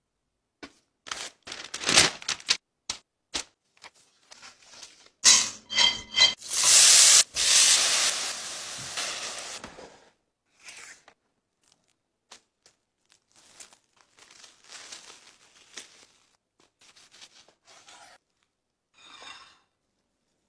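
Plastic cling film being handled: sharp clicks from its cardboard box at first, then a loud stretch of a few seconds as the film is pulled off the roll and torn, with a few squeaks. Softer crinkling of the plastic wrap follows.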